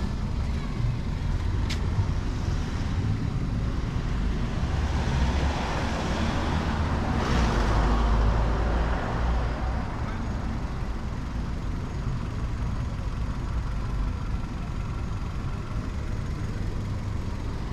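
Street traffic over a steady low rumble. A vehicle passes, growing loudest about seven to nine seconds in and then fading. A single sharp click comes about two seconds in.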